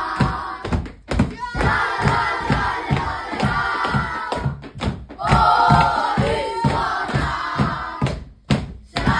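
A group of boys chanting and singing together over a steady beat of about three to four strokes a second, broken by two brief drop-outs.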